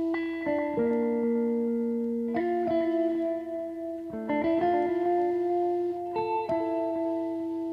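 Background instrumental music: slow, sustained notes and chords that change every second or two.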